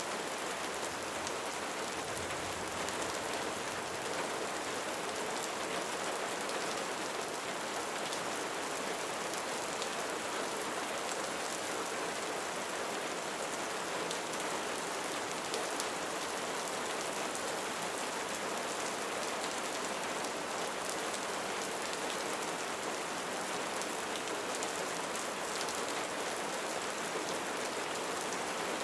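Rain falling steadily on a roof: an even, unbroken hiss of many drops.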